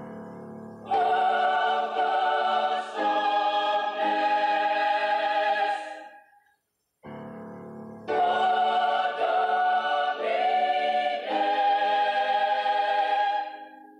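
Mixed youth choir singing loud, held chords in two phrases of about five seconds each, with a brief break between them.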